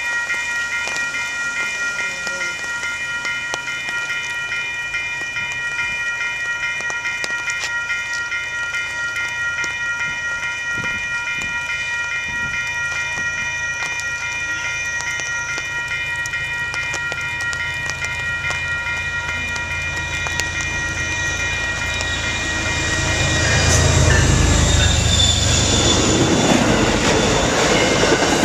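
Railroad crossing signal bell ringing steadily in a fast repeating rhythm. About 21 seconds in, a commuter train approaches and passes through the crossing, getting louder, with its wheels clattering over the rails.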